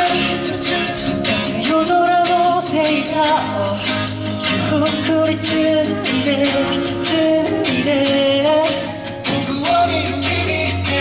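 Upbeat pop song played loud over a live sound system, with a steady bass and a melodic line that may be vocals, in a stretch with no clear lyrics.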